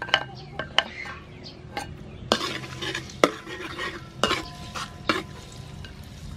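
Metal spatula knocking and scraping against a large metal wok about six times, stirring chopped garlic and chili in hot oil, with the oil sizzling more strongly from about two seconds in.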